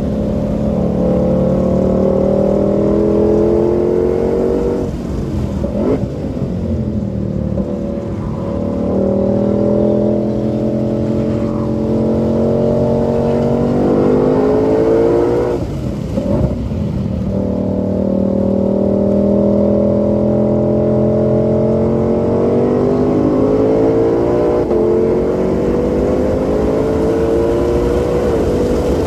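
2020 Shelby GT500's supercharged 5.2-litre V8 pulling hard under full throttle on a racetrack, its revs climbing steadily. The revs drop sharply about six seconds in and again about sixteen seconds in, then climb again.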